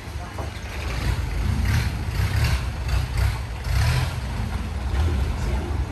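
Motorboat engine running with a low, uneven rumble.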